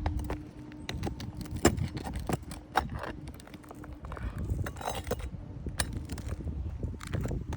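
Irregular sharp clicks and knocks with short scraping sounds: a hand tool working under brittle asphalt shingles to pull roofing nails and free a shingle.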